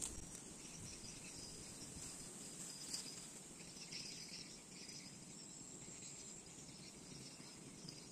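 Insects chirring steadily and faintly in the grass, a thin high buzz, with one faint click about three seconds in.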